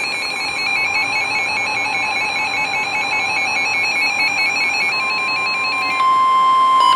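Weather radio alert tones. A rapidly warbling two-pitch electronic alarm sounds first. About five to six seconds in, a steady single-pitch tone near 1 kHz takes over, the NOAA Weather Radio 1050 Hz warning alarm tone that heralds a new warning.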